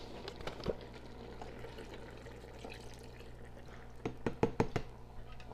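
Bone broth poured from a carton into a pressure cooker's pot of simmering gumbo, with a short run of quick glugs and splashes about four seconds in. Before that, only a few small clicks from handling the carton.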